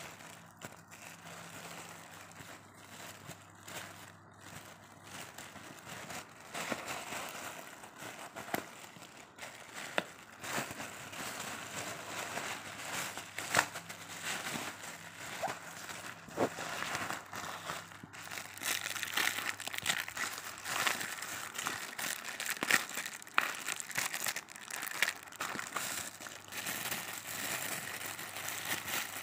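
Plastic courier mailer bag and plastic wrapping crinkling and rustling as a parcel is handled and opened by hand. The crackling grows busier and louder from about six seconds in and is densest in the last third.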